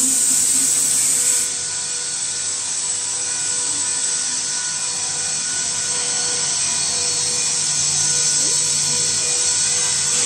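Steady whine of running electric machinery: several high, even tones over a constant hiss. A brief louder hiss covers the first second and a half.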